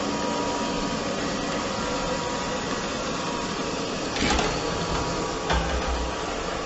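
Robot vacuum cleaner running with a steady whir. About four seconds in come a few dull thumps as the cat riding it tumbles off onto the wooden floor.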